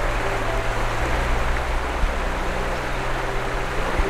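Wind blowing across the microphone: a steady rushing hiss with low, uneven buffeting.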